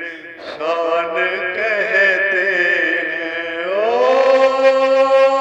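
A man singing a devotional bhajan solo, in long, drawn-out ornamented phrases. About three and a half seconds in, his voice slides up to a high note and holds it.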